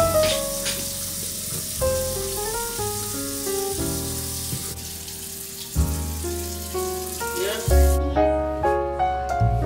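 Background music over water running from a kitchen tap into the sink; the running water stops suddenly about eight seconds in, leaving only the music.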